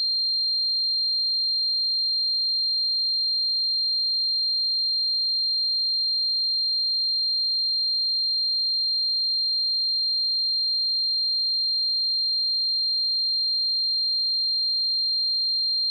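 Synthesized tinnitus sound effect: a single steady, high-pitched sine tone, unbroken and unchanging in pitch and loudness, imitating ringing in the ears.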